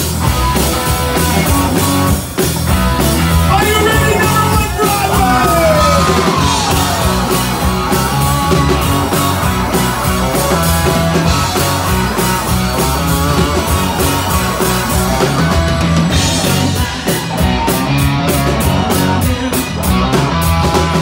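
Live rock band playing loud: electric bass, guitar and drum kit together, with a few falling pitch slides about five seconds in. In the last few seconds a cymbal beats steadily, about three strikes a second.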